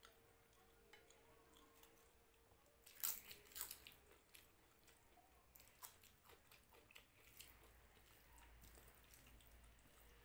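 Faint wet eating sounds of rice and dal eaten by hand: squishing as the hand mixes the rice, and a cluster of sharp mouth clicks and chewing noises about three seconds in, with scattered smaller clicks later.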